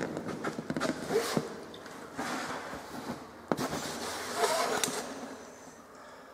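Camera handling noise: irregular rustling and knocks as the camera is moved about against clothing, with a sharp click about three and a half seconds in.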